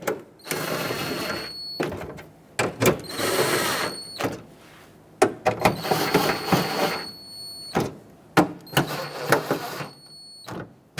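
A power tool running four mounting nuts down snug, one after another. It makes four runs of about a second and a half each, every run with a steady high whine, and there are sharp clicks between them.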